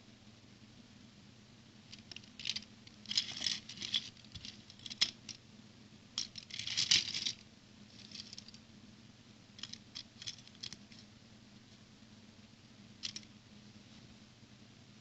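Small plastic building bricks and parts being handled and clicked together: clusters of light, crisp clicks and rustles about two seconds in and around six to seven seconds, a few more near ten seconds and a single one near thirteen.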